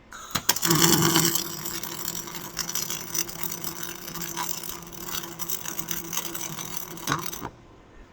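MIG welder's CO2-shielded arc crackling and spitting with 1.2 mm steel wire, over a steady low hum. It strikes at the start and cuts off suddenly about seven and a half seconds in.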